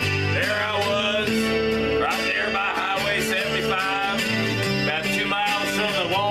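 Acoustic guitar strummed and picked in a country style, with a gliding, wavering melody line over the chords.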